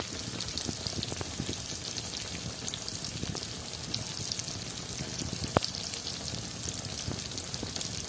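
Cream dory fish fillets shallow-frying in bubbling oil in a pan: a steady sizzle with fine crackling, and one sharper pop just after halfway.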